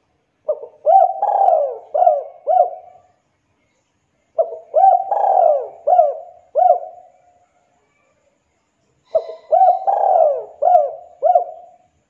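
Spotted dove (tekukur) cooing: three phrases of about five coos each, a few seconds apart.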